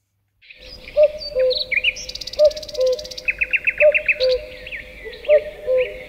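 Several birds singing: a low two-note falling call repeats about every second and a half, over higher chirps and trills from other songbirds.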